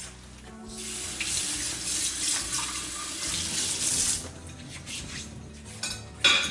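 Kitchen tap running into a stainless-steel sink as a whisk is rinsed under the stream, for about three seconds before the water is shut off. A sharp clink of glassware near the end.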